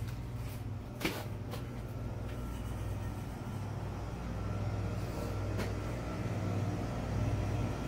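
Steady low hum of a store's background, with a faint high tone, a sharp click about a second in and a couple of fainter clicks later.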